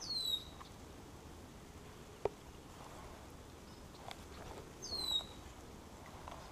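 A bird gives a short whistled call that slides downward, twice, about five seconds apart, over a soft patter of light rain on the water. A single sharp click sounds a little after two seconds, with a few faint ticks later on.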